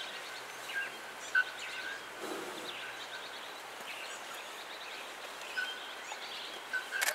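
Forest birdsong with the short, loud, ringing notes of a bare-throated bellbird (araponga) at irregular intervals, the loudest near the start and near the end, over steady chirping of smaller birds.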